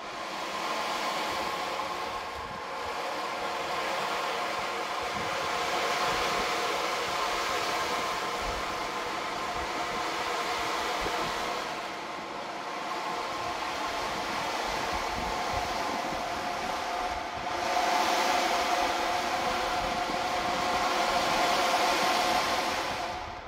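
Large frame drum held flat and tilted like an ocean drum, giving a continuous rushing wash with a faint ringing hum from the drumhead and no separate beats. It swells louder for the last six seconds or so.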